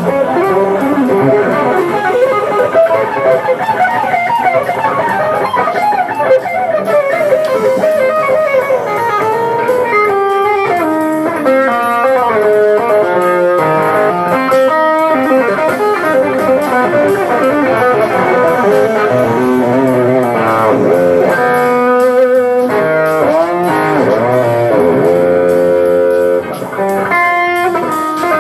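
Electric guitar playing jazz fusion lines, with many bent, gliding notes from about ten seconds in.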